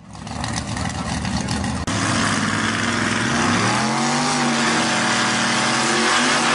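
Modified 4x4 truck engine running hard under load while pulling against another truck, with a rough crackle over the first two seconds. The engine note climbs about three seconds in and is then held high as it revs.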